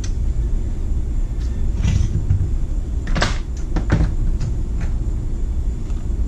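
A few knocks and clunks as the plastic chainsaw body is set down on the wooden workbench and parts are handled, the sharpest about three seconds in, over a steady low background rumble.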